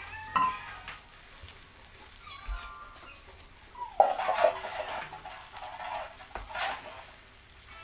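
Chicken-heart skewers sizzling over a charcoal grill, with a few short louder bursts, the loudest a sharp one about four seconds in followed by about a second of louder noisy sound.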